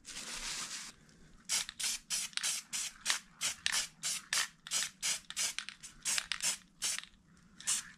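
Krylon aerosol spray-paint can sprayed in quick short taps, about three hissing bursts a second, after a steadier hiss in the first second.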